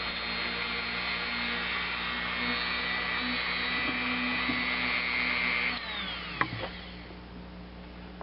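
Dremel rotary tool fitted with a small wire brush, running at high speed as it polishes small metal switch contacts. About six seconds in it is switched off and winds down, its whine falling in pitch.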